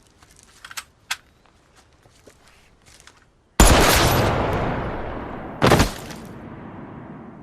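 Two loud gunshots about two seconds apart, each with a long echoing tail, after a few seconds of faint clicks and rustling.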